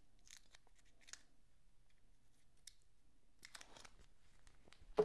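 Faint handling noises of small parts and tools on a workbench: scattered light clicks and rustles, a short rustling clatter about three and a half seconds in, and a sharp knock at the very end.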